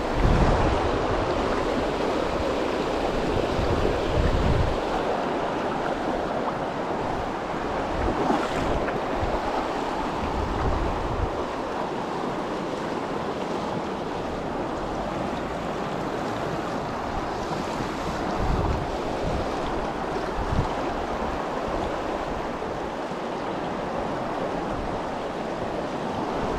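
Shallow, fast mountain stream rushing over rocks and boulders close to the microphone: a steady, even rush of water.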